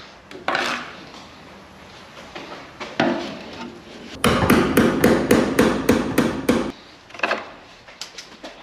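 Hammer blows: a single strike about half a second in and another around three seconds, then a quick run of about a dozen blows at roughly five a second, followed by a few lighter taps near the end.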